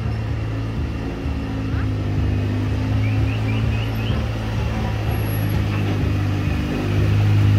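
An engine running steadily at a low pitch, with people talking over it. A quick run of four short, high, rising chirps comes about three seconds in.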